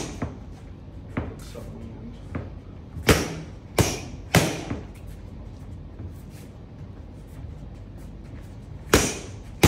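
Punches smacking into boxing focus mitts: a quick three-punch combination between about three and four and a half seconds in, with a lighter single hit about a second in and another sharp hit near the end.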